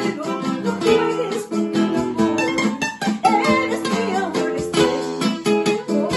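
Two acoustic guitars plucking the accompaniment of a vals, with a woman singing over them.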